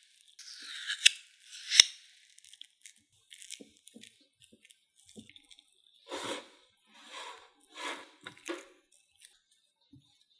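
Metal teaspoon scooping thick Greek yogurt and spreading it in a ceramic bowl: soft wet squishing and scraping, with two sharp clinks of the spoon on the bowl in the first two seconds and four broader spreading strokes in the second half.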